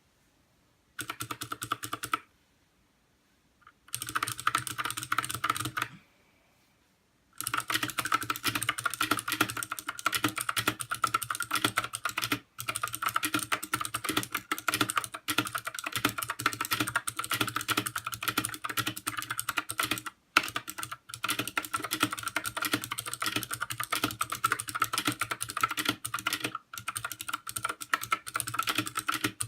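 Mechanical keyboard with clicky Gateron Blue switches, aluminium plate and ABS keycaps, being typed on with rapid key clicks. Two short bursts come first, then steady continuous typing from a few seconds in, with a couple of brief pauses.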